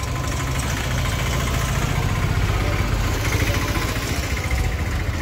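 Auto-rickshaw engine idling steadily, a low pulsing drone heard from inside the rickshaw's cabin.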